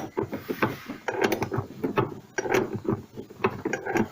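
Ratchet wrench clicking in several short runs of rapid clicks as nuts are tightened down.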